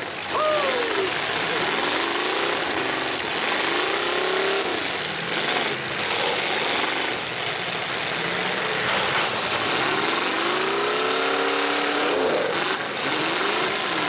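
Several demolition derby cars' engines revving hard and dropping back again and again, rising and falling in pitch over a dense, loud roar.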